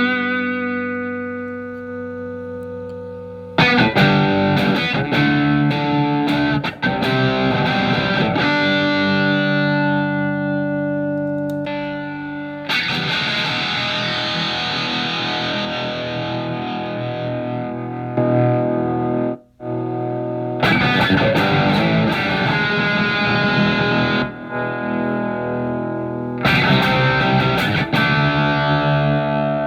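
Electric guitar (a Telecaster with alnico pickups) played through a Marshall MG15FX practice amp: overdriven chords struck and left to ring down, with a mildly dirty tone from the guitar's volume being rolled back. About 13 seconds in the sound turns thicker and more distorted as the amp's second overdrive channel (OD2) comes in, with a brief silence a few seconds later.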